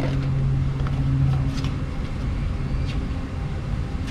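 Steady low mechanical hum with a droning tone that cuts off about a second and a half in, over a constant low rumble, with a few faint clicks of cardboard and plastic packaging being handled.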